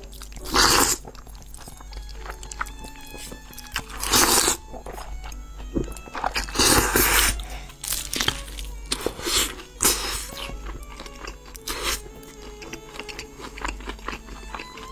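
Close-up eating sounds: loud crunching bites into sauce-coated fried chicken, about half a dozen crunches with chewing between them, over background music.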